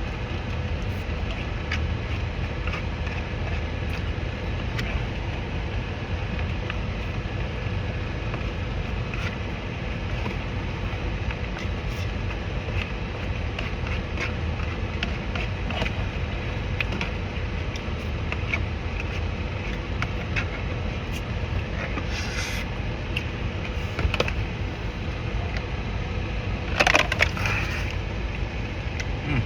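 Crunching and chewing of breaded coconut shrimp, many small crackles scattered throughout, with two louder crunching bursts near the end, over a steady low rumble.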